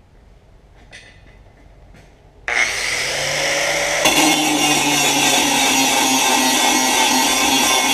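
Handheld angle grinder switched on about two and a half seconds in, its whine rising as it spins up, then grinding the edge of a steel plate with a steady loud rasp. A few faint clicks of handling come before it.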